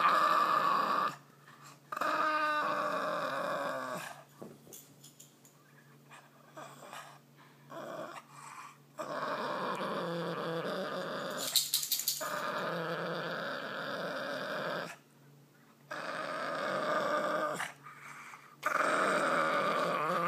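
Boston terrier growling over the rawhide chew in its mouth, in several long bouts with short pauses between them. A brief cluster of sharp clicks comes about twelve seconds in.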